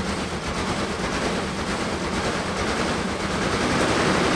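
1997 GMC Sierra's 4.3L Vortec V6 being started after sitting for two years, turning over and firing up with a rhythmic pulsing that grows louder toward the end.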